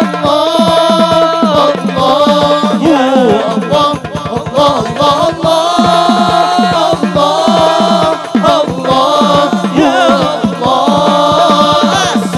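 Group of men singing an Arabic devotional song (sholawat) together, holding long notes with a wavering pitch, over fast, steady percussion beats.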